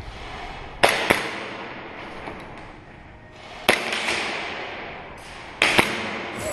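Airsoft pistol shots: five sharp cracks in three groups, a quick pair about a second in, a single one past halfway and another quick pair near the end, each followed by a short echoing tail.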